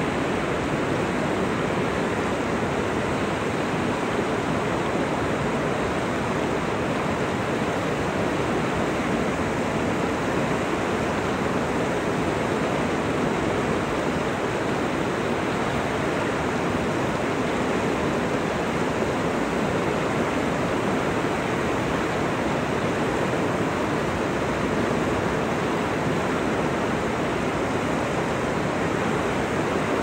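Mountain river flowing: a steady, even rush of water with no breaks or changes.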